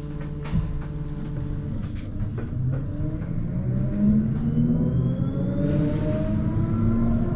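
Electric tram heard from inside the car: a low running rumble, with the motor whine rising in pitch as the tram picks up speed. There are a few sharp knocks in the first three seconds.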